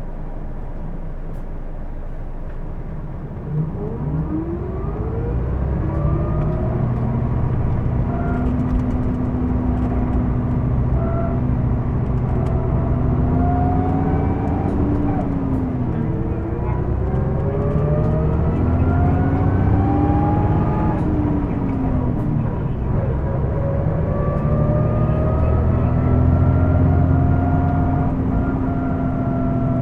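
Hino Blue Ribbon II city bus (PJ-KV234L1) heard from inside the cabin. The diesel idles, then the bus pulls away about three seconds in and accelerates through the gears. A loud whine rises with speed and drops back at each gear change; this whine is the bus's abnormal noise.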